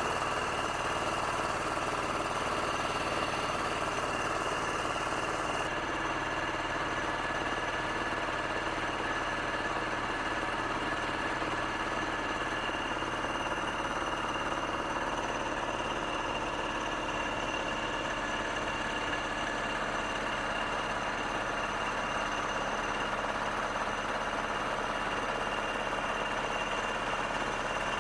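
An engine running steadily at an even speed: a continuous drone with a few constant whining tones.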